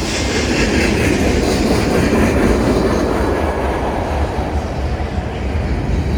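Union Pacific manifest freight train's cars rolling past on the rails with a steady rumble.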